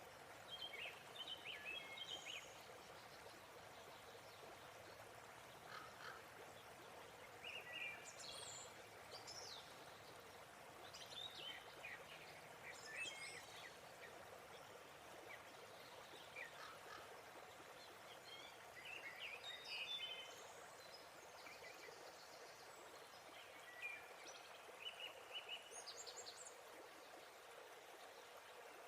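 Faint, steady rush of a waterfall, with birds chirping in short phrases every few seconds.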